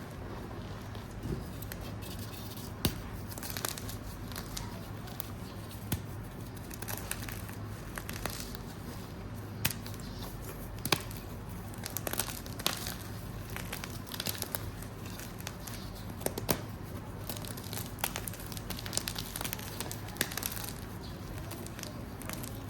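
Gym chalk being crunched and crumbled: irregular crisp crackles and crunches, some sharper and louder than others, over a steady low hum.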